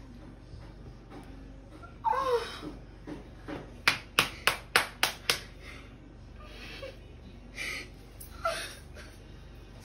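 A woman groaning in pain a couple of times, with a quick run of six sharp slaps, about three a second, in the middle.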